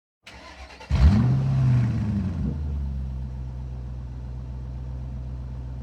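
2020 Jeep Gladiator's V6 engine starting: after a faint sound from the starter, it catches about a second in with a brief rev, then settles into a steady idle.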